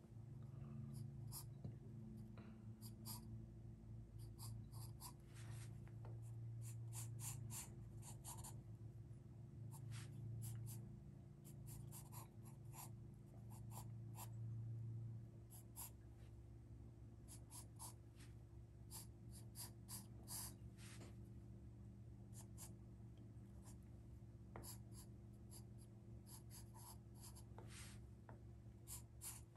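Charcoal pencil scratching on drawing paper in groups of quick short strokes with pauses between, over a low steady hum.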